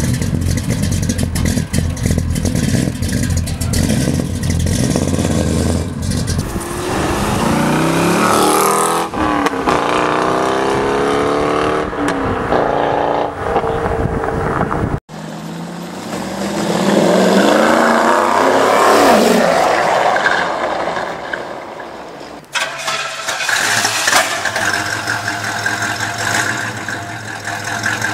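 American V8 car engines. A Dodge V8 idles with a steady low note. Then a car accelerates hard up the road, its engine pitch climbing, dropping and climbing again through gear changes, and a second car's engine rises in pitch as it accelerates past and then fades away. Near the end a Pontiac Firebird's V8 idles steadily.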